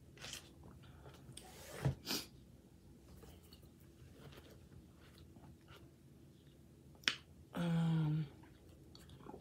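Eating noises from a person eating instant noodles: scattered sharp mouth clicks and smacks while chewing. About three-quarters of the way through comes a short voiced sound from the eater.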